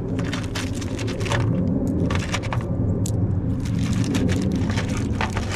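Many small clicks and clinks of metal nuts, bolts and a bracket being handled, over a steady low engine-like hum.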